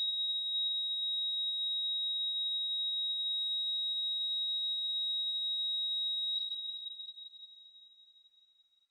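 A single steady high-pitched electronic tone, a film sound effect, held for about seven seconds and then fading away.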